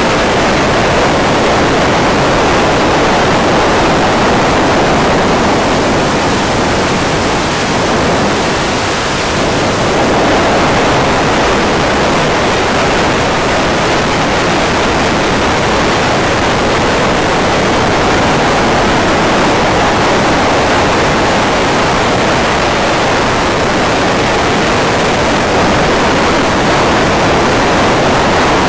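Steady, loud rushing hiss on a gliding FPV plane's onboard audio, with no motor sound: the motor is idle while the plane dives. The hiss dips briefly about eight seconds in.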